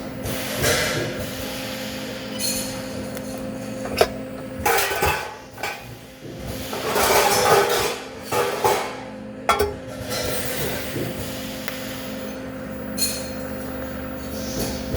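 Metal knocking and clinking, with a sharp strike about four seconds in and another near nine and a half seconds, over a steady electrical hum.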